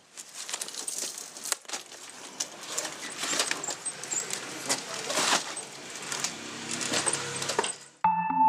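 Chunks of ice clattering and rattling with many irregular sharp knocks as they are packed into the gap between an outer wooden tub and an inner iron drum. The rattle stops shortly before the end.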